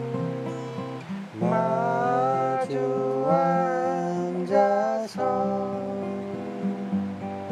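Acoustic guitar music: a slow, gently strummed song.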